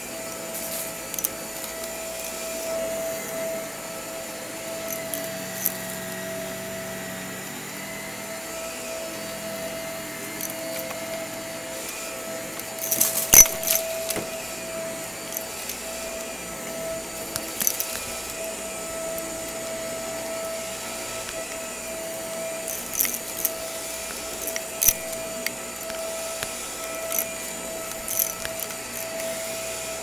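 Upright vacuum cleaner running steadily over carpet, a constant motor whine, with scattered sharp clicks and rattles and one louder knock about 13 seconds in.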